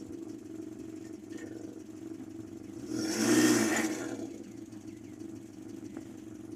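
Engine of a van stuck in mud running steadily, then revved hard for about a second, three seconds in, as it tries to pull out of the mud hole, before dropping back.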